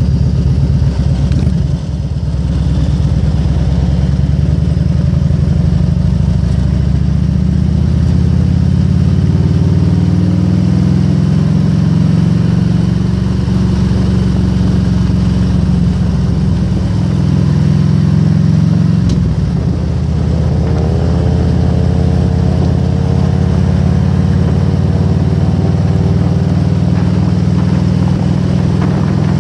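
Harley-Davidson Road King's V-twin engine running on the move, its pitch rising as it accelerates, with brief dips about two seconds in and again about nineteen seconds in.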